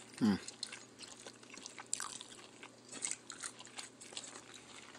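Eating sounds: faint chewing and small scattered wet clicks from a mouthful of sticky rice and salad, with a short falling hum just after the start.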